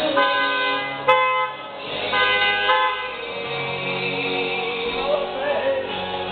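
Car horn honking in three blasts, one after another over about three seconds, with a sharp click a second in; background music with singing plays throughout.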